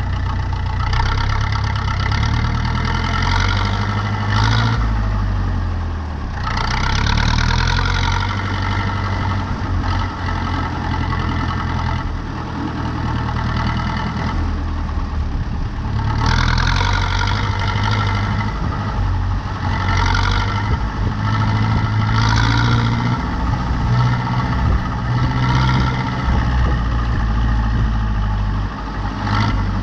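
Zetor 7245 tractor's four-cylinder diesel engine running steadily, its pitch rising and falling every few seconds as the revs and load change.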